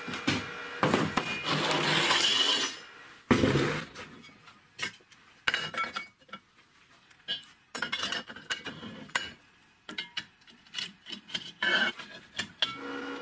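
Steel parts of a homemade brake-disc saw jig being handled and fitted on a workbench: metal scraping and sliding for the first few seconds, one loud knock about three seconds in, then a run of light clinks and taps, some ringing briefly.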